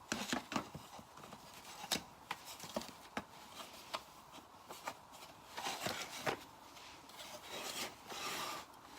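Faint, irregular clicks and rubbing from hands handling a mini sewing machine and its thread, with no motor running.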